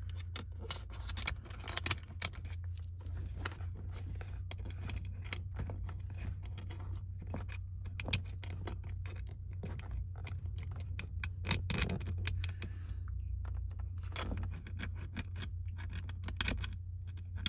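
Plastic center console cap and its screws being handled and fitted: irregular small clicks, rattles and scrapes throughout, over a steady low hum.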